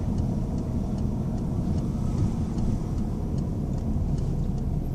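Steady low rumble of a small car's engine and tyres, heard from inside the cabin while driving. Faint regular ticking of the turn indicator, signalling a right turn, sits over it.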